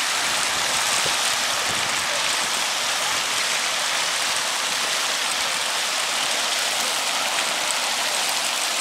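Steady rushing hiss of a pond fountain's spray falling back onto the water.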